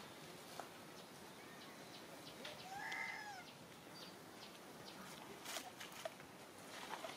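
A single short macaque call about three seconds in, rising then falling in pitch, over scattered light clicks and rustles.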